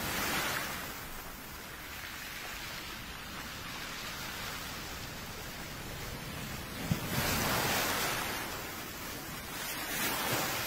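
Sea waves washing in and drawing back, a steady rushing hiss that swells in slow surges, loudest around two-thirds of the way through.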